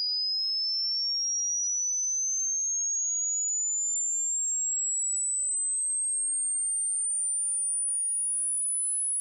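Hearing-test sine tone: a single pure, high-pitched whistle gliding slowly and steadily upward in pitch. It is a frequency sweep whose rising pitch is matched to listener ages, so the highest parts are heard only by younger ears.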